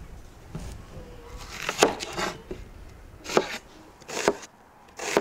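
Chef's knife slicing through an onion onto a wooden cutting board, one slow cut at a time, each ending in a sharp knock on the board: about four cuts, roughly a second apart.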